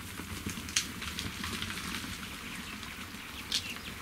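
A herd of eland stampeding off through dry bush, spooked by a bow shot: a dense clatter of hooves on dry ground and snapping brush over a low rumble, with a few sharper cracks about a second in and near the end.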